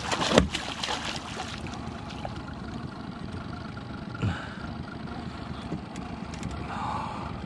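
A hooked zander thrashing and splashing at the water's surface as it is grabbed by hand, with one sharp splash about half a second in. After that, a steady low background rumble.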